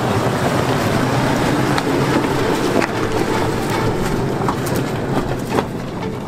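Toyota FJ Cruiser's V6 engine running at low crawling revs as the SUV climbs over loose rocks, with tyres crunching and scattered clicks and knocks of stones. The sound eases off a little near the end as the vehicle pulls away.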